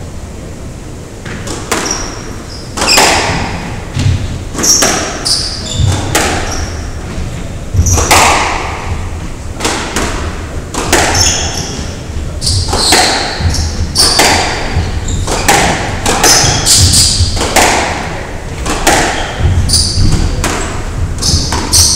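Squash rally: the ball cracks off rackets and the walls about once a second, starting about a second and a half in, each hit ringing in the court, with rubber-soled shoes squeaking briefly on the wooden floor between hits.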